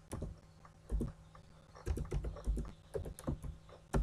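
Typing on a computer keyboard: an uneven run of key presses, two or three a second, each a sharp click with a dull thud.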